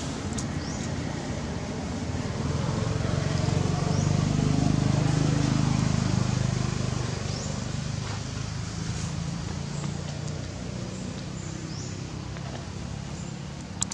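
Low hum of a passing motor vehicle's engine, swelling for a few seconds in the middle and then fading, over outdoor background with scattered brief high chirps.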